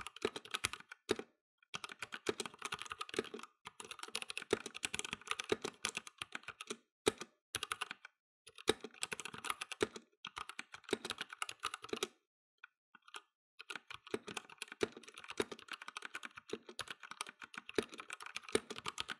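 Typing on a Vortex VX87 mechanical keyboard, heard close up: fast runs of key clicks with brief pauses, and a longer lull with only a few scattered keystrokes about two-thirds of the way through.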